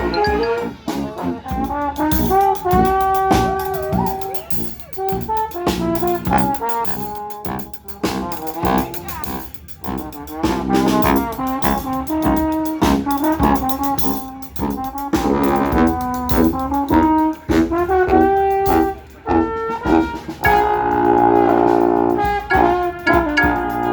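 Brass band playing a tune live: horns in several parts at once over a steady beat of sharp percussive hits.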